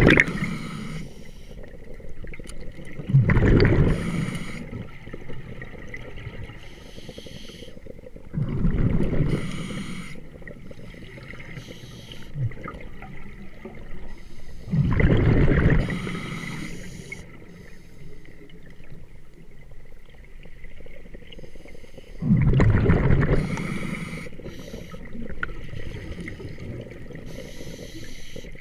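Scuba diver's exhalations through a regulator heard underwater: five gurgling bursts of bubbles, about a second each and a few seconds apart, with a lower steady background between.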